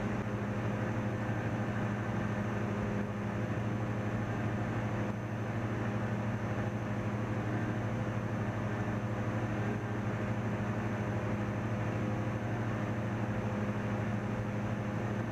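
Cessna 172's piston engine and propeller droning steadily in cruise descent, heard from inside the cockpit.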